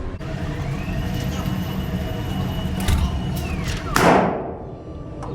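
Two loud shots about a second and a half apart, each with a short ringing decay, over a steady low hum. Before them, a thin whine rises, holds and falls away over about three seconds.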